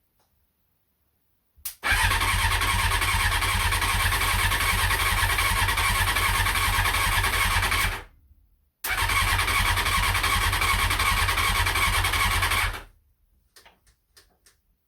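Honda CBR600F being cranked on its starter motor, which is powered by bridging the starter terminals by hand, on half choke: two long cranking runs of about six and four seconds with a short break between. This is a first start attempt on a hot-wired bike. A few light clicks follow near the end.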